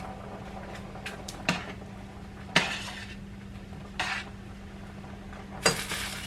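Kitchen clatter of metal utensils against pots and pans: several separate clinks and knocks, the loudest about two and a half seconds in, over a steady low hum.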